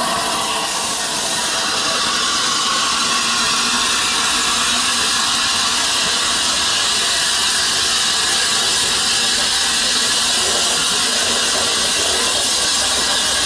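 Steam hissing steadily and loudly from the Flying Scotsman, an LNER A3 Pacific steam locomotive.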